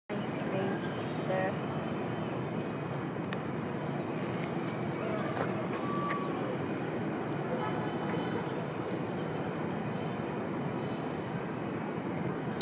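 A steady, high-pitched insect chorus holding one continuous shrill tone, over constant background noise.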